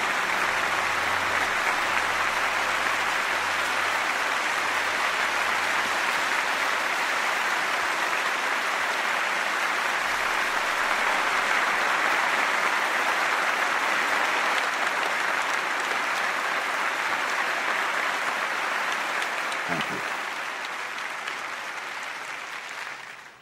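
Large audience applauding steadily, dying away over the last few seconds.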